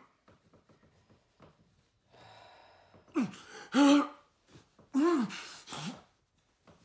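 A man gasping and groaning in pain during a seizure-like muscle spasm attack of unknown cause, which he thinks is neurological. A soft breath comes about two seconds in, then strained cries with swooping pitch about three to four seconds in and again about five to six seconds in.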